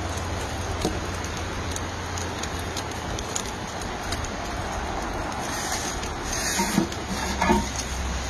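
Steady rushing roar of the flame in an Ooni pizza oven as a pizza bakes, with a few light knocks about two-thirds of the way through.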